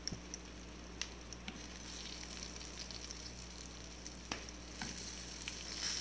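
Oil sizzling in a small pan as a tempering of coriander seeds, curry leaves and green chillies fries in it, with a few sharp pops.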